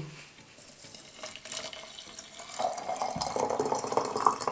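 Hot water poured from a glass jug into a porcelain teapot. The stream is faint at first and grows louder about two and a half seconds in as it splashes into the pot.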